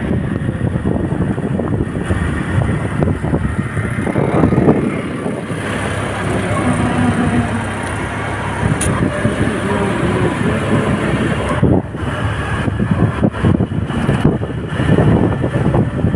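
Road noise of a moving vehicle, with wind buffeting the microphone in uneven gusts.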